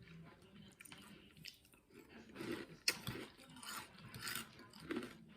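A person chewing and crunching a mouthful of Cap'n Crunch cereal in milk, in short irregular bites with a sharper crunch about three seconds in.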